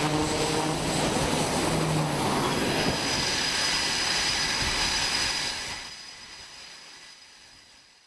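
C-2 Greyhound's twin turboprop engines running loud, a roar with a low propeller hum and a high turbine whine. The sound fades out over the last two or three seconds.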